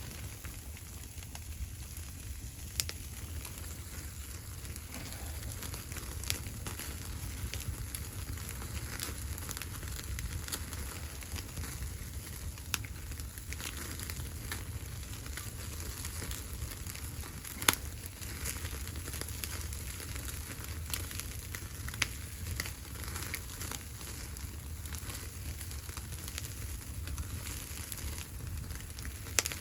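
Wood fire crackling, with irregular sharp pops and one loud pop about eighteen seconds in, over a steady low rumble.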